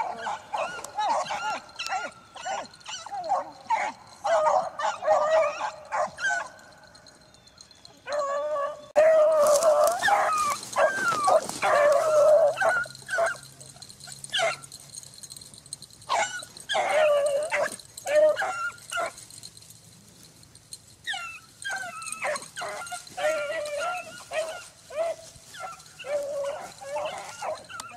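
A pack of beagles baying as they run a rabbit: many overlapping yelping, howling calls at once, with two short lulls, about eight seconds in and again about twenty seconds in.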